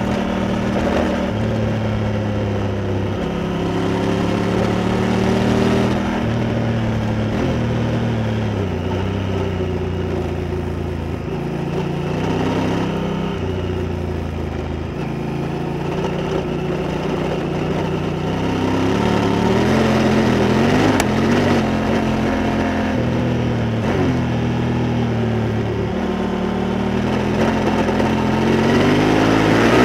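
Honda Africa Twin motorcycle engine running under way. Its note holds steady for a few seconds at a time, then steps up or down in pitch with throttle and gear changes. The pitch rises with acceleration about two-thirds of the way through and again near the end.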